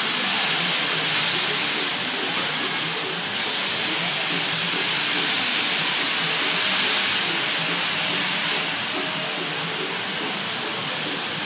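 Steady rushing hiss heard aboard a spinning hub-and-spoke amusement ride, easing slightly about two seconds in and again near the end.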